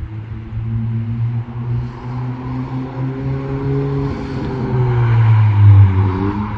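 Honda Civic Si (10th generation) with a MAPerformance cat-back race exhaust, driving by: the exhaust note rises slowly in pitch, then falls away, loudest about five and a half seconds in.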